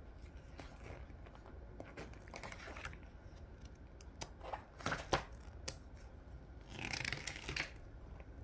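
Pages of a hardcover comic book being turned by hand: soft paper rustling, with a few short sharp paper snaps in the middle and a longer swish of a page sweeping over about seven seconds in.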